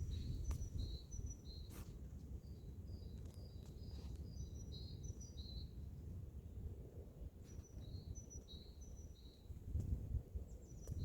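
A songbird singing phrases of short, high chirping notes that alternate between two pitches, with a pause of about two seconds between phrases, over a low rumble.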